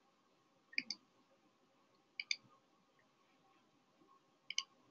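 Faint computer mouse clicks: three quick pairs of clicks, spaced about a second and a half to two seconds apart, over quiet room tone.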